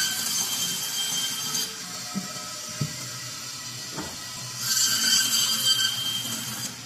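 Electric meat band saw cutting through a block of frozen meat: a loud, high whining hiss from the blade, twice, through the first second and a half and again from about four and a half seconds until near the end. Between the cuts the saw runs with a low steady hum, with a few light knocks as the meat is set against the blade.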